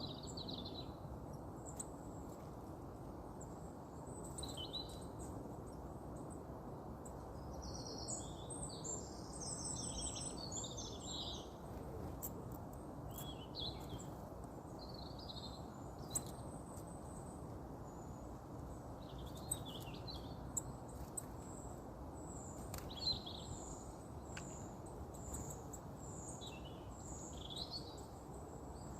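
Woodland birds singing and calling in scattered high chirps and short phrases, busiest about a third of the way in and ending with a run of evenly repeated high notes, over a steady low background rumble. A few sharp clicks stand out.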